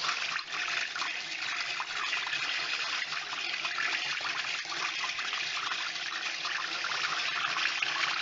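Hand-cranked rotary egg beater whisking milk into beaten eggs in a bowl, its blades churning steadily through the liquid.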